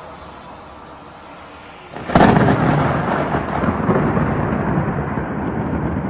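A close lightning strike: a sharp, very loud thunderclap about two seconds in, then a rolling rumble of thunder for several seconds, over a steady hiss of rain.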